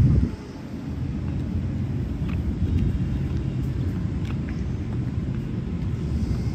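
Outdoor city-park ambience: a steady low rumble with a louder surge right at the start that drops away quickly, and a few faint clicks in the middle.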